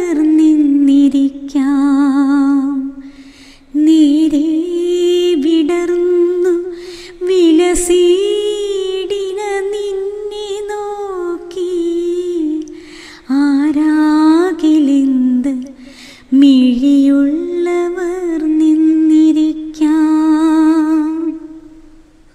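A woman's unaccompanied sung recitation of a Malayalam poem, in long held melodic phrases with a wavering vibrato, each phrase breaking off for a short breath. The last phrase fades away near the end.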